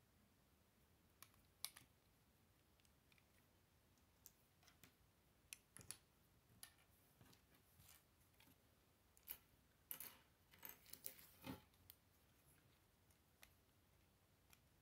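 Plastic Lego bricks clicking and snapping as pieces are pressed together and fitted by hand: faint, scattered sharp clicks, with a busier run of them a little past the middle.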